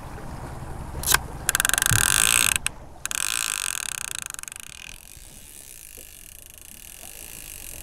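Conventional trolling reel ratcheting as line pays out off the spool: two runs of rapid clicking, the second one fading out about halfway through.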